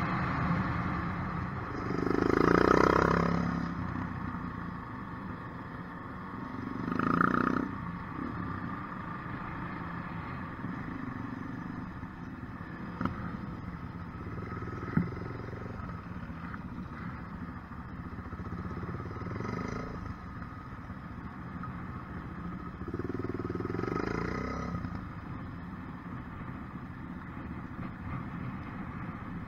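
Kawasaki KLR 250 trail bike's single-cylinder engine running as it rides along, with other trail bikes nearby. The sound swells louder three times, and two sharp clicks come in the middle.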